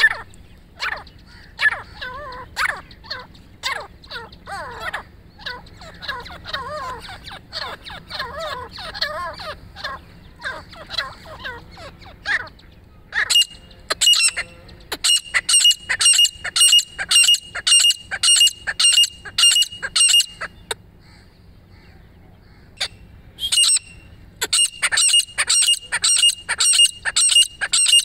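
Grey francolins calling. First comes a run of varied short chattering notes; then, from about halfway, a long series of loud, high calls repeated evenly about twice a second, which stops for a couple of seconds and then starts again.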